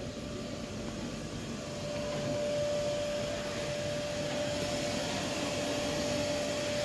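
A blower-type machine running steadily, with a steady whine that grows louder about two seconds in.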